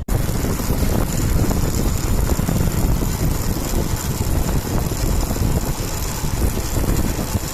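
Bajaj Pulsar RS200 rolling along in neutral, with wind rushing over the microphone and steady road and drivetrain noise. No tak-tak chain clatter stands out: the front sprocket has been flipped to cure it.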